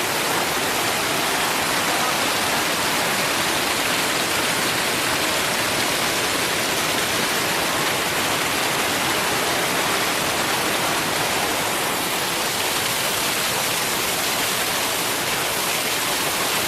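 Düden Waterfall's water falling and crashing, a steady loud rush of white water.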